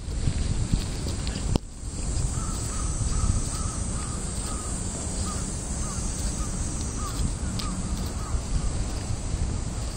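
Steady road-traffic rumble and wind on the microphone, with a bird giving a run of a dozen or so short calls in the middle, close together at first and then spaced out.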